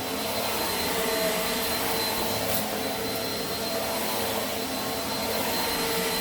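Eureka AirSpeed Plus (NEU110) vacuum cleaner running steadily while pushed over carpet, its airflow noise carrying a thin, steady high whine. A brief tick sounds about two and a half seconds in.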